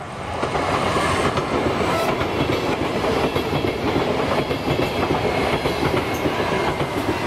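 ES1 Lastochka electric multiple unit passing close by at speed: a loud, steady rush of wheels on rails with clattering over the rail joints, building up in the first second.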